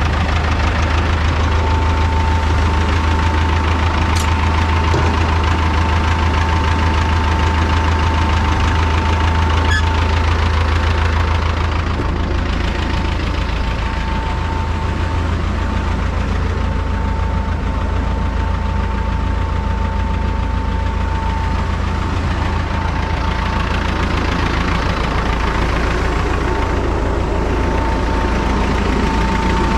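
Tractor diesel engine running steadily, with a steady high whine over it. The deep engine hum eases a little about twelve seconds in.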